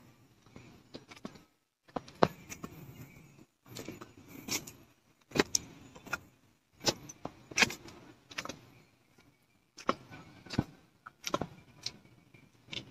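Footsteps of someone walking down a flight of steps: irregular scuffs and sharp clicks about once a second, with light rustling between them.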